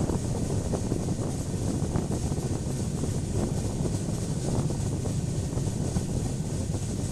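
Passenger express train running on the line, heard from on board: a steady low rumble of the coach on the rails.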